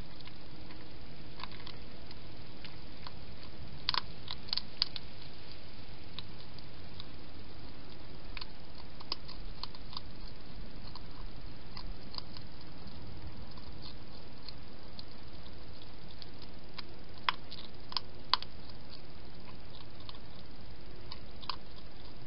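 Hedgehog eating from a bowl: scattered sharp crunches and clicks of chewing, bunched a few seconds in and again about three-quarters through, over a steady hiss.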